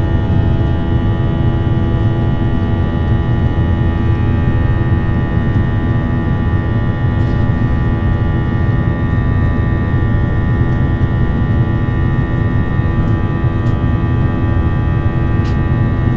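Cabin noise of an Airbus A321 climbing after takeoff: a steady, loud rumble from its IAE V2500 engines, with many held, unchanging tones running through it.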